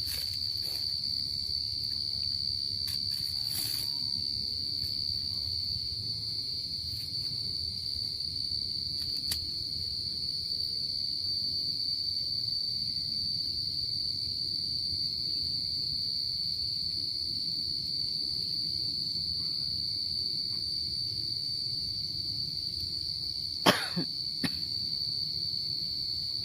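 Insects trilling one steady high note without a break, over a low background rumble. A sharp click stands out about three seconds before the end, with a few fainter ticks elsewhere.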